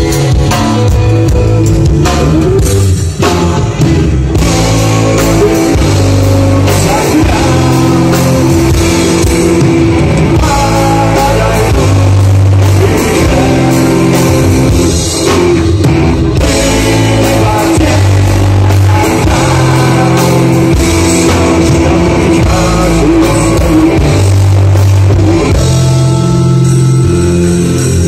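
Rock band playing live: electric guitars over a steady, loud low-end riff and a drum kit, with a male voice singing.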